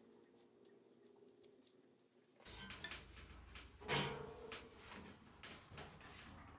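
Light clicks of knives being laid down on a steel bandsaw table. A cloth then rubs and wipes across the table, with a louder knock about four seconds in.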